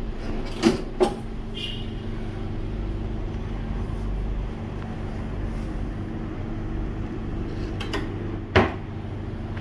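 Kitchen drawers being pulled open and pushed shut: two quick knocks about a second in and a louder knock near the end, over a steady low hum.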